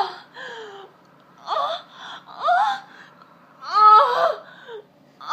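Two people laughing uncontrollably in high-pitched, squealing bursts with gasps between them, about one burst a second.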